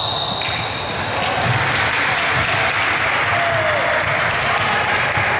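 A basketball bouncing on a gym court during a game, with irregular dull thumps over a steady background of noise.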